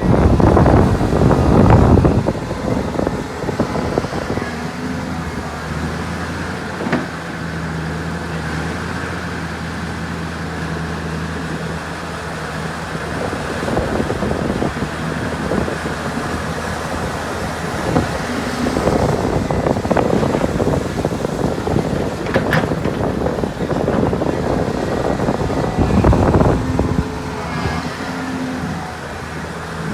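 Heavy diesel earthmoving machinery at work: a steady engine drone that swells into louder surges at the start, about two-thirds through and near the end, with a few sharp knocks.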